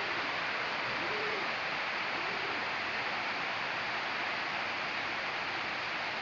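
Heavy rain falling steadily on trees, roofs and ground: a dense, even hiss.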